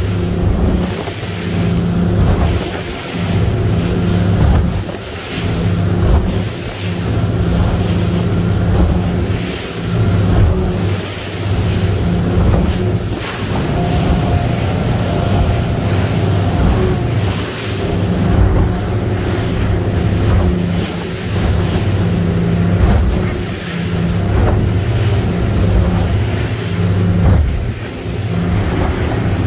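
Outboard engines of a Cape Horn 32T center-console boat running steadily at cruising speed, with water rushing past the hull and wake, the hull now and then thumping on waves, and wind buffeting the microphone.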